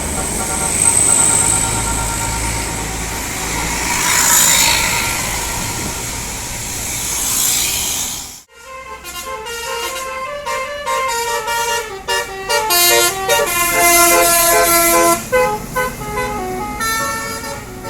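Bus telolet horn, a set of air horns playing a tune: a quick run of short notes stepping up and down in pitch, several sounding together, starting about halfway in after a sudden break. Before the break, dense vehicle and road noise with faint horn tones, swelling twice.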